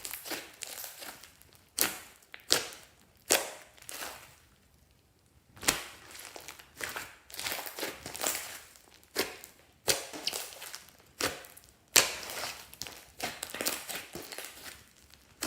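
Glossy slime being squished and poked by hand, giving irregular wet clicks and pops, a few a second, with a short pause about four seconds in.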